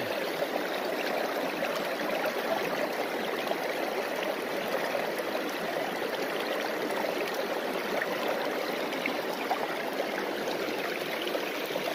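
Stream water running steadily over and through a gold sluice box's riffles and matting.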